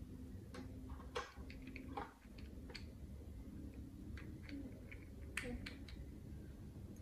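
Small plastic toy kitchen pieces being handled and set down: scattered light clicks and taps, a few a second at most, with one or two sharper knocks.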